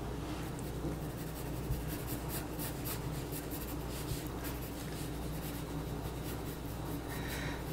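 Pencil scratching on drawing paper in quick, irregular sketching strokes, with a steady low hum beneath.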